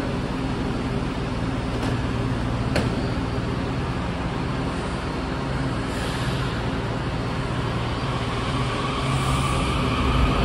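WMATA 7000-series Metrorail train standing at the platform with a steady hum, two sharp clicks close together about two seconds in, then a rising traction-motor whine near the end as it starts to pull out.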